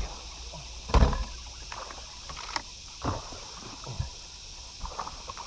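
A few dull knocks and thumps on a fishing boat's deck as an angler shifts and works his rod. The loudest comes about a second in, with smaller ones near three and four seconds, over a steady high hiss.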